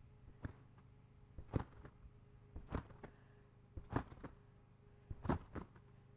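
Rhythmic thumps of someone bouncing on a large rectangular Acon trampoline: five landings on the mat, about one every second and a quarter.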